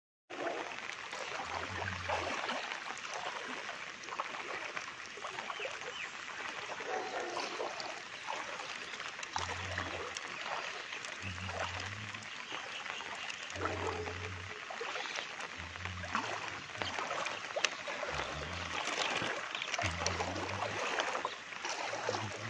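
Steady rush of flowing floodwater, with short low thumps every couple of seconds.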